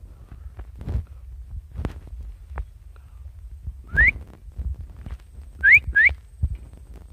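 Three short, loud whistles, each rising in pitch: one about four seconds in, then a quick pair near the end, over a steady low rumble.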